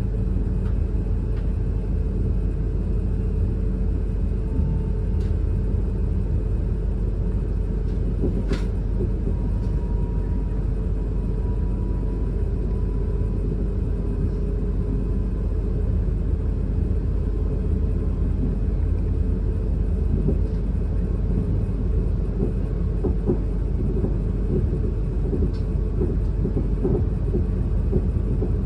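Cabin noise inside a Class 444 Siemens Desiro electric multiple unit running along the line: a steady rumble of wheels and running gear with a faint, even whine, and one sharp click about eight seconds in.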